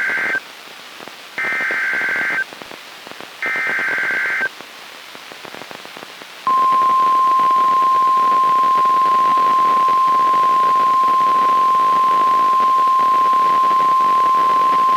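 NOAA Weather Radio Emergency Alert System alert: three one-second bursts of SAME header data tones about a second apart, with radio hiss between. From about six and a half seconds in, the steady 1050 Hz warning alarm tone holds. The alert opens a severe thunderstorm warning.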